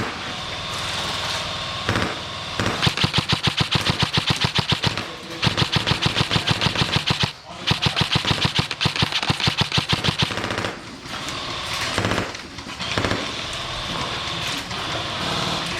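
Airsoft rifles firing long full-auto bursts of rapid, even clicks: three long bursts in the middle, with fainter firing around them.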